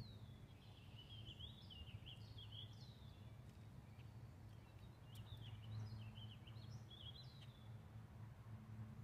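Faint songbird singing in quick, chirpy warbling phrases, two runs of song with a short pause between, over a low steady hum. A single sharp click about five seconds in.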